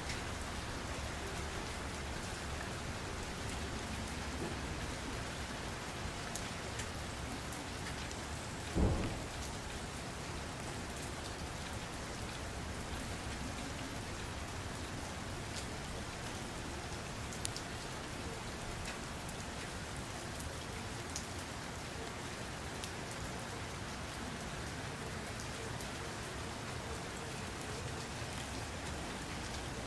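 Steady rain falling, an even hiss throughout, with one short low thump about nine seconds in.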